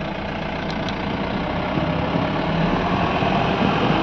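Vehicle engine running steadily with road noise, heard from inside the cab while driving.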